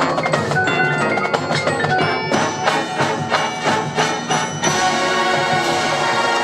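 Marching band playing, with the front ensemble's mallet percussion striking fast repeated pitched notes. About two-thirds of the way through the band settles into a held chord.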